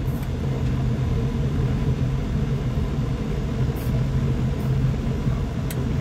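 Steady low mechanical rumble with a couple of faint clicks in the second half.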